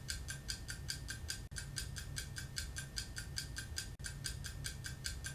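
Rapid, even mechanical ticking, like clockwork, about six or seven ticks a second over a low rumble, briefly cutting out twice.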